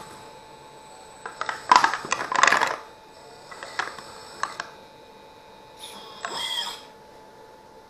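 Hydraulic RC excavator's metal tracks clattering and clinking against the trailer deck in three short bursts as the machine moves. The first, about a second and a half in, is the loudest, and the last, near the end, has a warbling whine in it.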